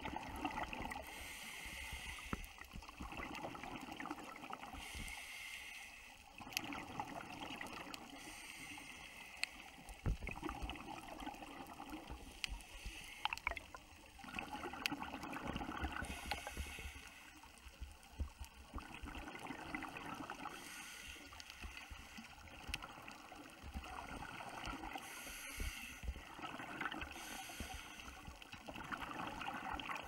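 Scuba diver's breathing heard underwater: a burst of exhaled bubbles from the regulator about every four seconds, with quieter stretches between them and occasional sharp clicks.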